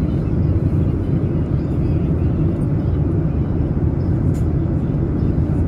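Steady cabin drone of a Boeing 787 airliner in flight: a constant low rumble of engines and airflow with no change in pitch.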